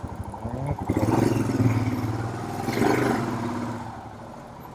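Motorcycle engine idling with a quick, even firing beat, then revved about a second in as the bike is moved to be parked. It swells twice before settling back down near the end.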